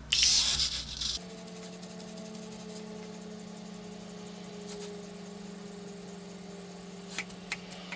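A short burst of hissing noise, then the hobby servo motors of an Arduino-driven robot arm hum steadily as the arm swings an eyeshadow brush up to the face. A few faint clicks come near the end.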